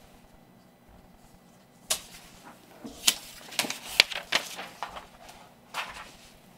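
Paper map sheets being handled and swapped: a run of sharp rustles and flaps from about two seconds in, loudest around the middle, then stopping near the end.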